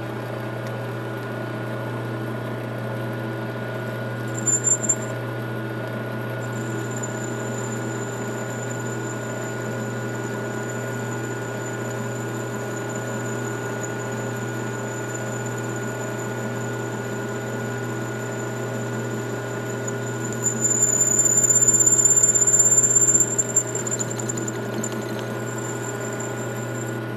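Metal lathe running steadily with a motor hum while a boring bar cuts inside a stainless Damascus ring blank, adding a thin high-pitched squeal that comes and goes and is loudest about two-thirds of the way through.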